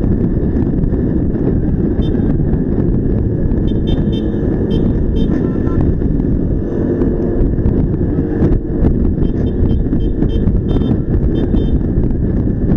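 Steady rumble of a motor vehicle's engine mixed with wind noise while riding along a road, with light rattling ticks now and then.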